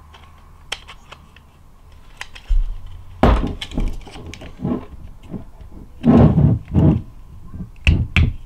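Small plastic parts clicking and knocking together as a blower fan and its 3D-printed plastic shroud are handled and fitted by hand. Light clicks at first, then several louder knocks and rubbing noises from about three seconds in.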